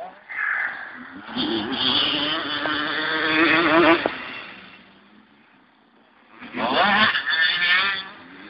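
Motocross dirt bike engines revving hard as bikes ride past on the track. One bike's revving rises and fades over the first few seconds. After a short lull, another bike passes loudly about six and a half seconds in.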